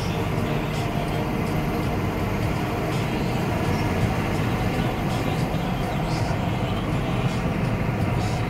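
Steady road and engine noise inside a car's cabin at highway speed, heaviest in the low end, with faint light ticks now and then.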